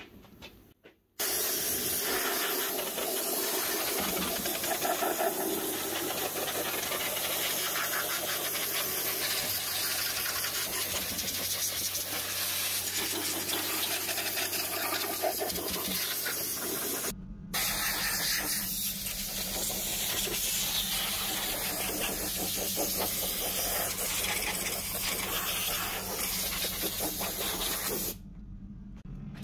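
Pressure washer jet hissing steadily as it blasts caked dust off a plastic vacuum-cleaner housing. It starts about a second in, breaks off briefly a little past halfway, and stops shortly before the end.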